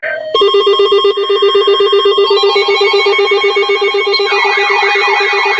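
Emergency weather alert alarm going off: a harsh, buzzy electronic tone pulsing rapidly, joined about four seconds in by a repeating rising-and-falling warble. It signals that a new warning is about to be broadcast.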